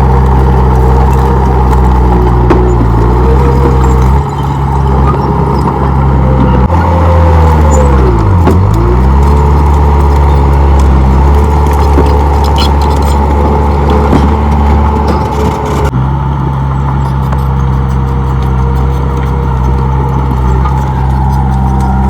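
Komatsu D31P bulldozer's diesel engine running steadily. About eight seconds in its pitch dips sharply and climbs back. The tone shifts suddenly a few times.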